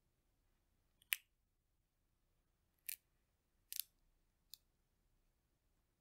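Roasted chestnut shells cracking under the fingers as they are peeled: four short, crisp snaps, the loudest about a second in and the others in quick succession around the middle.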